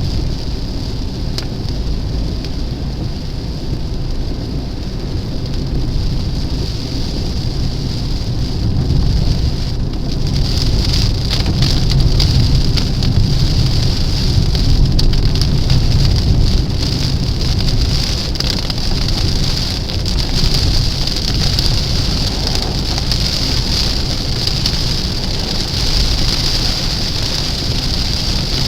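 Rain pattering on a car's windshield and roof, many fine drops over a low steady rumble from the car. The rain thickens and grows louder about a third of the way in.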